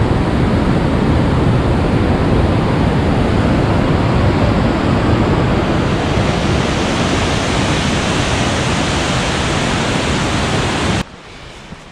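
Loud, steady rush of a fast mountain river tumbling through whitewater over boulders. It cuts off suddenly near the end.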